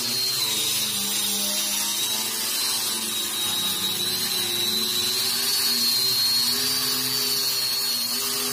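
Angle grinder, mounted in a plywood base as a surface-levelling tool, running steadily with a high whine while its disc grinds across a flat wooden plank. The pitch drifts slightly as the load on the disc changes.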